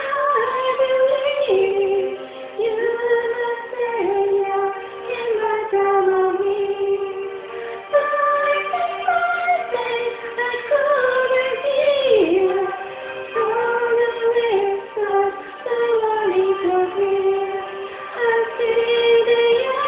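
A woman singing a melody, holding long notes and gliding between them.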